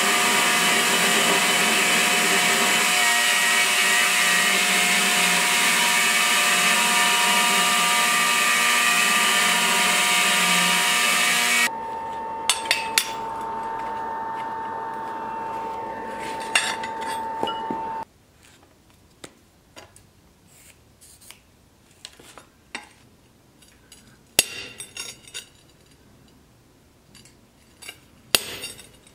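Belt grinder grinding a blank of leaf spring steel, a loud steady grinding hiss with a constant whine, which cuts off abruptly about twelve seconds in. A quieter steady hum follows for about six seconds. Then come light clicks of tools on an anvil and a few sharp hammer taps on a punch, the loudest two near the end.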